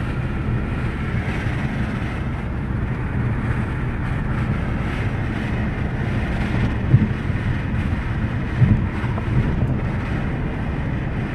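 Wind noise inside the cabin of a 2012 Jaguar XJ cruising at about 70 mph: a steady rush with a few brief louder thumps about two-thirds of the way through. The noise persists after a dealership adjustment that did not cure it.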